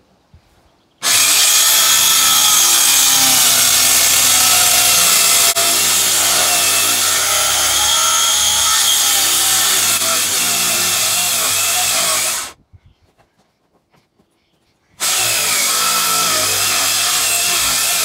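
Handheld power saw cutting through timber floor boards, running steadily in two spells with a break of about two and a half seconds near the end.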